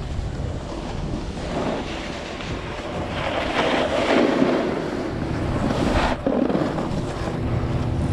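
Snowboard sliding and scraping over packed, chopped-up snow while riding downhill, with wind buffeting the microphone; the scraping swells louder around the middle.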